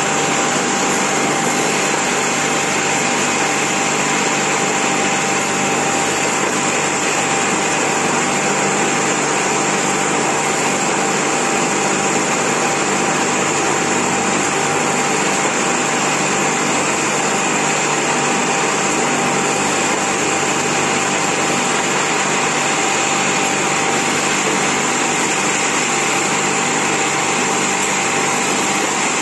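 Glass-tempering furnace line running: a steady, loud rush of machine and air noise with a thin constant whine.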